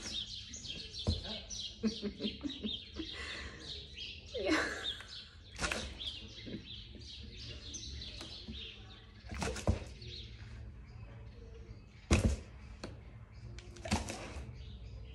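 Sharp thuds on a cardboard box with holes in its top as a husky bumps at it with its muzzle during a whack-a-mole game, four or five knocks spread out, the loudest near the end. Birds chirp quickly in the background through the first third.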